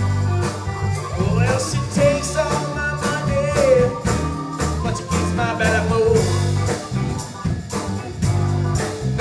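Live band playing: electric guitar, electric bass, drum kit, keyboard and hand percussion together, with a steady drum beat and a wavering, bending lead line above it.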